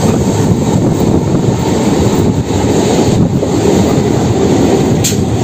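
Electric suburban local train running at speed, a steady loud rumble of wheels on rail and rushing air heard from an open doorway of the coach. One short sharp click about five seconds in.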